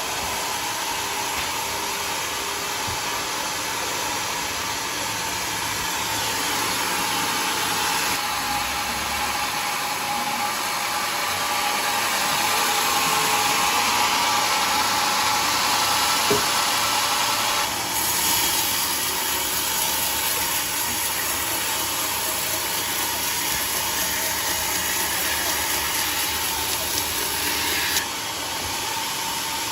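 Band sawmill running through a jackfruit log: a steady, high, hissing blade noise over the mill's motor. It grows louder about a quarter of the way in, shifts in tone just past halfway, and drops suddenly near the end.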